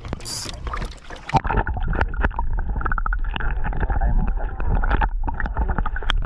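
Splash of a camera going into lake water about a second and a half in, then muffled underwater sloshing and low rumble of water moving around the submerged microphone.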